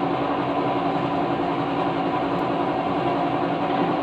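A steady machine drone with a constant hum, unchanging throughout, and no distinct knocks or tool strikes.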